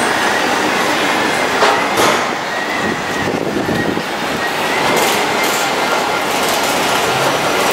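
A train running on elevated railway tracks, heard as a steady rail rumble and clatter under street noise, with a faint thin squealing tone from the wheels.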